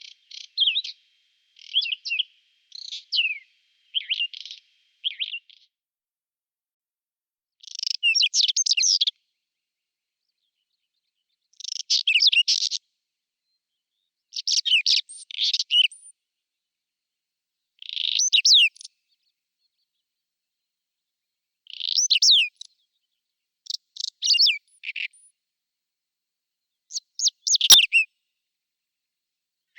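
Whinchat singing: short, varied phrases about a second long, repeated every few seconds, after a run of quicker brief notes at the start. A single sharp click sounds near the end.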